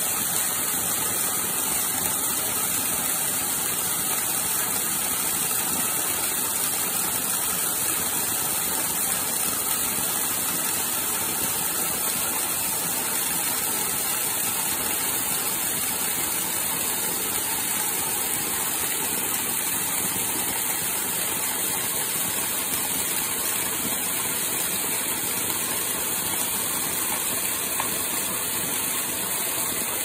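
Small waterfall running full after rain, pouring from a wooden chute and splashing onto rock below in a steady rush.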